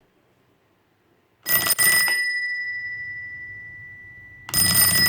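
A metal bell rung twice, about three seconds apart: each time a quick cluster of strikes, then one clear high ringing tone that fades slowly.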